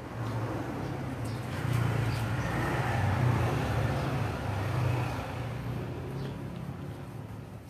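A motor vehicle passing by: a low engine drone with road noise that swells to a peak midway and fades toward the end.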